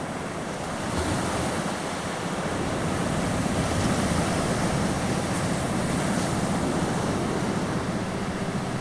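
Ocean surf: waves washing in as a steady rush that swells slightly over the first few seconds. Near the end a faint pulsing isochronic tone comes in.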